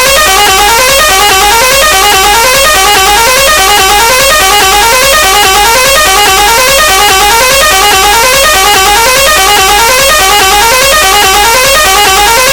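Multi-tone musical truck horn sample playing a short rising phrase over and over, about twice a second, as the hook of a high-gain DJ remix, with a deep electronic bass beat underneath.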